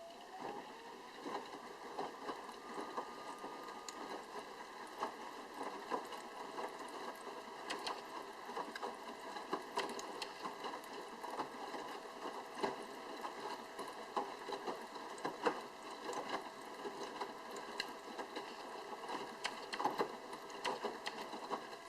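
Sharp drum washing machine during the wash: a motor whine rises in pitch at the start and then holds a steady tone, under irregular splashing and knocking of wet laundry tumbling in the drum. The owner puts the motor sound down to the water-circulation pump, the direct-drive drum motor itself being quiet.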